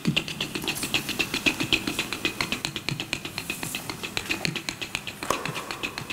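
Fast, even clicking, about nine clicks a second, over the soft irregular steps of a ballroom couple dancing on a wooden parquet floor without music.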